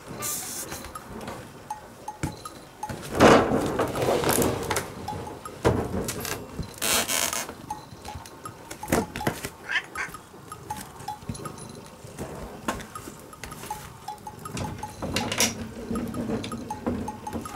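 Domestic cat meowing a few times, mixed with rustling and knocking close to the microphone.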